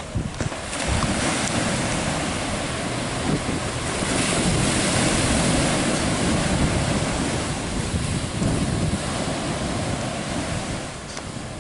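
Rough sea surf breaking and washing, with wind buffeting the microphone. The rush swells about a second in and eases near the end.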